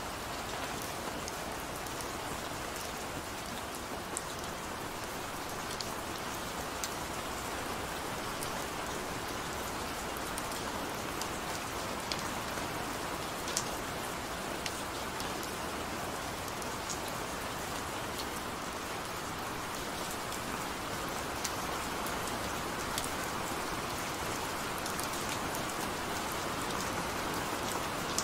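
Gentle, steady rain: an even hiss with scattered sharp taps of individual drops.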